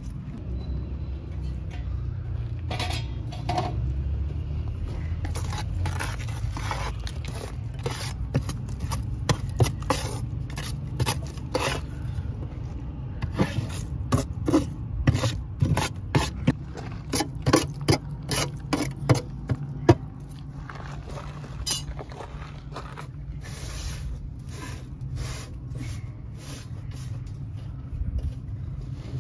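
Ash and embers being scraped and swept off the lid of a metal cooking pot sunk in the embers of a clay oven: a run of short, irregular scraping strokes over a steady low hum.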